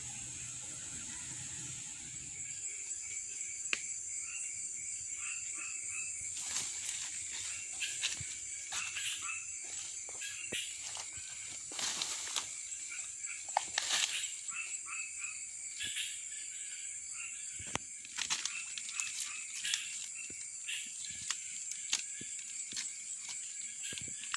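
Night swamp chorus: a steady high insect drone with frogs calling in short, repeated notes throughout. Scattered sharp clicks and rustles from movement through dry palm fronds.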